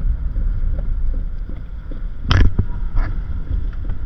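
Steady low rumble of a car driving, heard from inside the cabin, with one brief knock a little past halfway.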